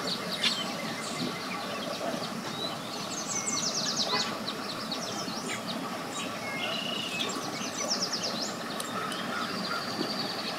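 Birds chirping over a steady outdoor background rumble, with a fast trill of short falling notes about three seconds in and again about eight seconds in.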